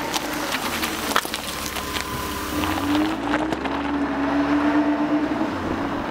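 Engine-like mechanical running sound with scattered clicks and a low rumble, its pitch rising about two and a half seconds in and then holding steady.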